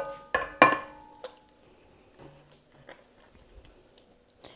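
Two knocks against a stainless-steel mixing bowl, about half a second apart, each leaving the bowl ringing briefly; after that only faint handling sounds.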